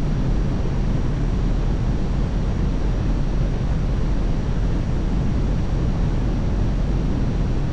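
Steady, deep rush of airflow buffeting the microphone of a camera mounted outside a glider in flight.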